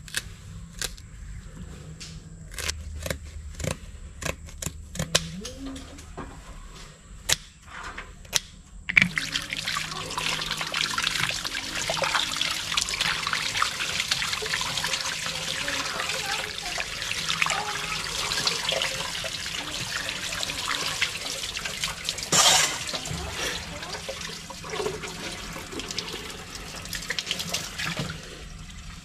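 Kitchen scissors snipping the sharp spiny fins off a grouper, a series of separate sharp clicks; then, about nine seconds in, water starts running from a tap over the fish as it is rinsed and scraped, a steady rushing splash until near the end.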